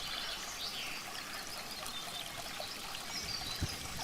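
Shallow river running steadily over stones, with a few faint high chirps over it.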